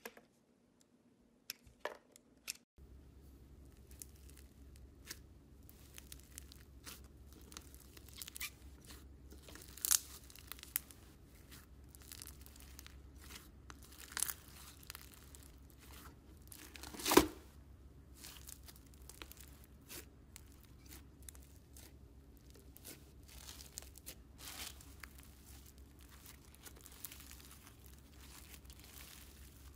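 A few sharp clicks of a craft-knife blade shaving a soap bar, then floam slime (slime packed with foam beads) being pressed and kneaded by hand, crackling and crinkling with many small pops over a low steady hum. One louder crack stands out about halfway through.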